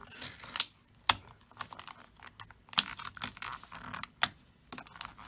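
Stiff plastic padlock packaging being cut open with a knife and handled: irregular sharp clicks and crackles, two loud snaps in the first second or so.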